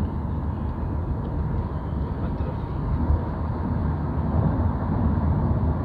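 Steady low rumble of tyre and engine noise heard from inside a moving car's cabin at motorway speed, as the car drives into a road tunnel.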